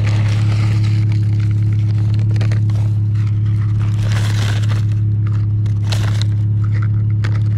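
A paper fast-food bag crinkling and rustling as it is shaken out and emptied of food, over a loud, steady low hum.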